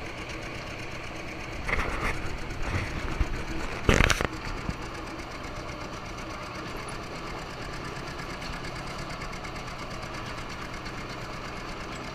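Farm tractor engine running steadily with a constant low drone. There is a brief rattle about two seconds in and a loud, short knock about four seconds in.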